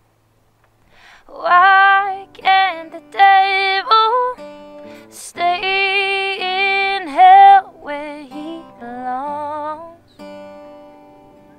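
A woman sings with a Yamaha acoustic guitar played along. After a quiet first second her voice comes in, sings several phrases and stops near the end, leaving the guitar ringing on alone.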